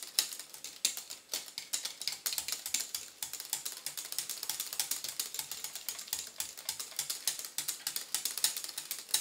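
Wire whisk clicking against the side of a glass bowl as it is worked quickly through a soft fig and cream mousse mixture with light strokes, a fast, steady patter of small ticks several times a second.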